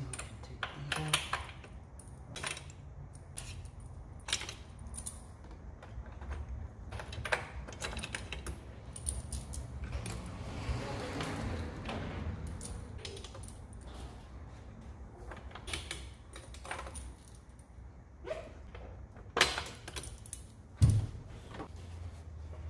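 Hand tools and loose metal engine parts clinking and clattering as the intake manifold of a Chevy 5.3 V8 is unbolted and worked off: scattered sharp clicks, a rustling swell about ten seconds in, and two loud knocks near the end, over a low steady hum.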